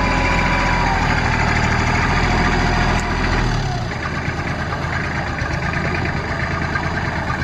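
Kubota compact tractor's diesel engine running steadily while its front-end loader lifts a bucket of sand. Its low rumble drops away about halfway through.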